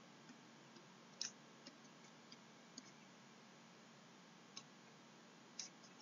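Faint, irregular clicks of a stylus tapping on a writing tablet during handwriting, about eight in all, the loudest a little over a second in, over near silence.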